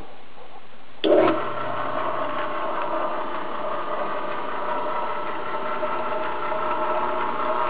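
A Hobart 20-quart mixer switches on with a clunk about a second in, then its electric motor and gear drive run steadily with a mechanical hum, driving the meat grinder attachment mounted on its hub.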